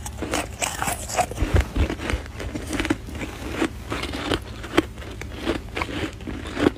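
Packed snow being bitten and chewed close to the microphone: a run of short, crisp crunches, about three a second.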